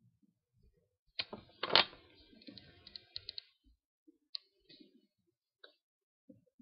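Small clicks and knocks of hand soldering on a circuit board: a soldering iron and solder tapping against the board and the bench. A quick run of knocks comes about a second in, the loudest near two seconds, followed by a few scattered ticks.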